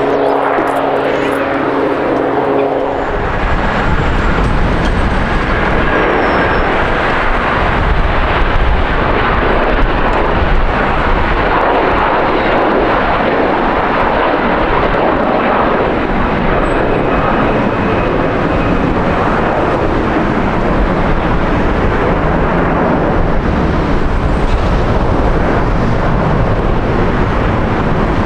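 Jet airliner engines at high power: a loud, steady rush that sets in suddenly about three seconds in, after a hum with a few held steady tones.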